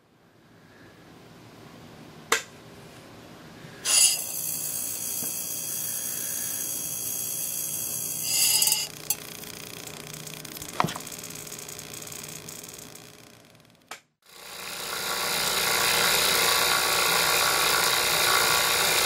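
A few sharp clicks and a short loud hiss over a quieter running sound, then, about three-quarters of the way in, a loud steady buzzing hiss starts as a high-voltage glow discharge runs between the electrodes of a gas-filled low-pressure discharge tube.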